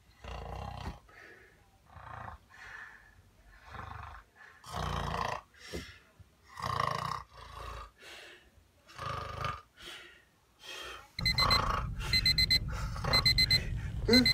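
A person in bed snoring, one loud breath every second or two. About eleven seconds in, a digital alarm clock starts beeping in quick repeated bursts.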